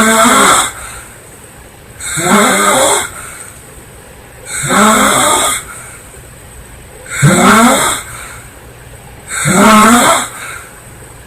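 A woman snoring loudly in her sleep: five snores in a steady rhythm, one about every two and a half seconds, each lasting about a second.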